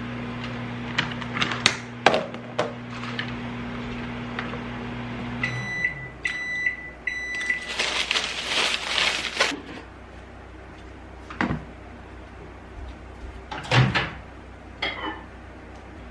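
Microwave oven running with a steady hum that stops about five seconds in, followed by a short run of high beeps marking the end of its cycle. Then a few seconds of loud rustling clatter and a couple of knocks.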